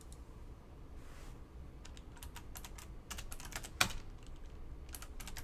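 A run of quick, light clicks and taps in irregular clusters, with one sharper tap about four seconds in.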